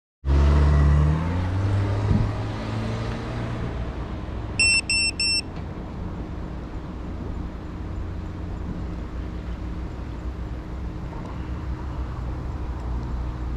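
Loud low knocking and rumbling from the camera being handled and set down, then three short high electronic beeps about five seconds in, over a steady low rumble.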